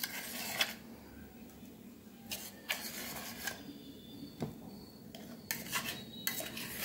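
Steel spoon scraping and clinking against stainless steel vessels as thick, coarsely ground coconut chutney is scooped out, in several short bouts with a sharp click or two.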